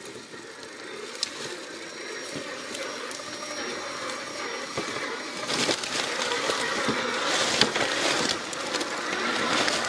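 1:6 scale RC Jeep Willys rock crawlers driving over river rocks: electric motors and gear drivetrains whining while tyres crunch and stones click and knock. It grows louder as the nearer truck approaches, with a few sharp clicks.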